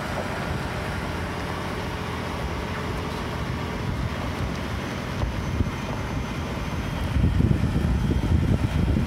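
Heavy transport truck hauling a wind turbine blade on a long trailer, its engine and tyres rumbling steadily on gravel. Wind starts buffeting the microphone about seven seconds in.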